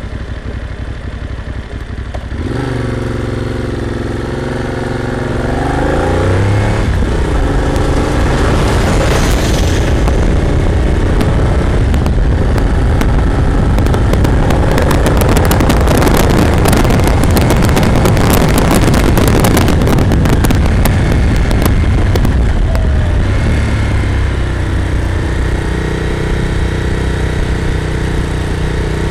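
Moto Morini motorcycle engine idling, then pulling away about two and a half seconds in, its note climbing through a gear with a shift near seven seconds. Heavy wind noise on the bike-mounted microphone buries the engine through the middle. The engine note comes back near the end and rises again.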